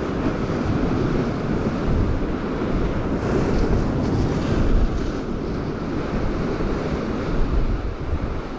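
Ocean surf washing and breaking against jetty rocks, with wind buffeting the microphone. A wave breaks louder about three to five seconds in.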